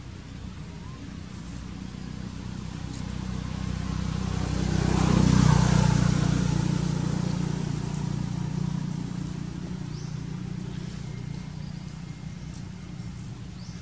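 A motor vehicle passing by: its engine grows louder, is loudest a little before the middle, then fades away.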